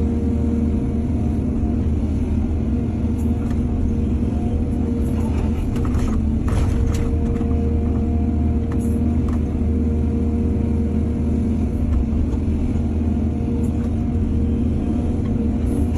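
Heavy diesel engine of an excavator running steadily with a low rumble, with a few short scrapes and knocks about a third of the way in and again just after halfway.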